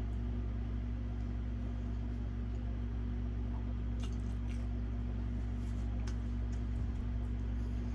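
Quiet chewing with a few faint wet mouth clicks and squishes about four to six seconds in, over a steady low hum.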